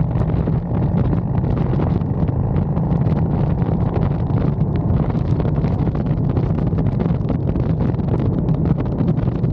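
Steady low rumble of wind buffeting the microphone, with faint scattered ticks over it.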